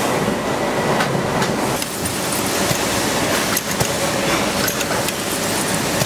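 Factory machinery running: a steady mechanical din with scattered clicks and knocks.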